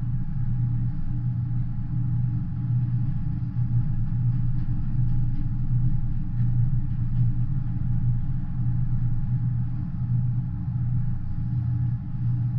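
CSX double-stack intermodal freight train rolling past, its container cars making a steady low rumble with an uneven pulsing, heard muffled through a window.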